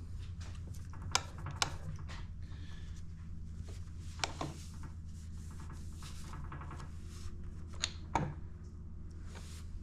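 Light clicks and rubbing from metal engine parts being handled on the bench, over a steady low hum.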